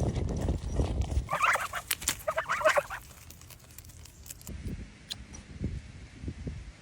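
Farm poultry calling: two short bursts of rapid, wavering calls starting about a second in, after a low rumble at the start and followed by a few soft low thumps.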